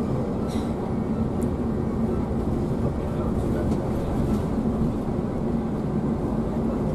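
Steady cabin noise inside a moving Scania K360iB coach: the engine's hum and road rumble as the bus drives along.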